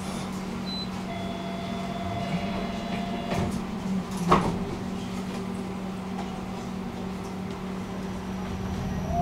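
Tram standing at a stop with a steady electrical hum. About a second in, a steady tone sounds for two or three seconds, then a sliding door shuts with one sharp knock.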